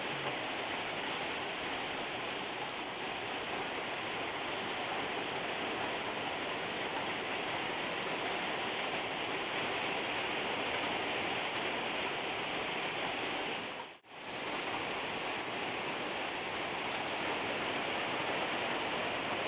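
Heavy monsoon rain falling steadily, a dense even hiss that dips out for a moment about two-thirds of the way through.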